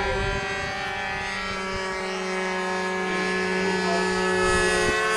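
Glow engine of an R/C trainer model airplane running steadily in flight, a high buzzing drone whose pitch rises slightly near the end.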